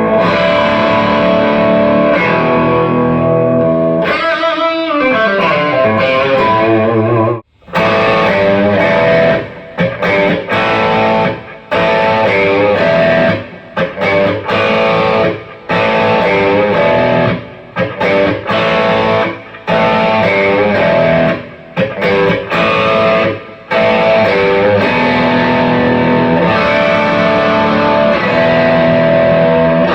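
Electric guitar played through effects with distortion: held chords and notes with downward pitch slides, and through the middle a run of stop-start stabs with short breaks about once a second.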